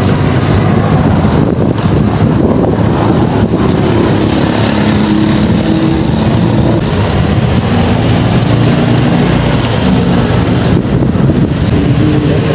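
Road traffic noise with heavy wind rumbling on the microphone; an engine hum from a passing vehicle stands out through the middle.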